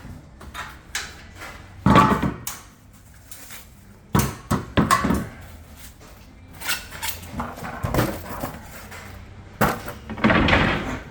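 Irregular knocks, clunks and clatters of gas grill parts and packaging being handled during unpacking, with a longer scraping, rustling stretch near the end.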